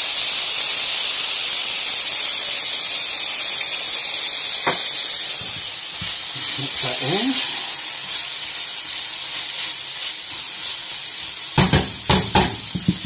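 Minced beef and diced onion sizzling in a frying pan, a steady hiss. Metal tongs stir the mince, with a few sharp clacks against the pan near the end.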